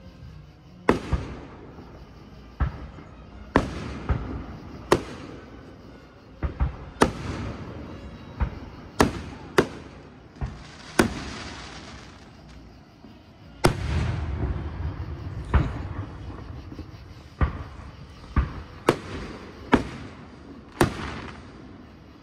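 Aerial fireworks shells bursting overhead: a steady run of sharp bangs, roughly one a second, each trailing off in a rolling echo, with a longer low rumble a little past the middle.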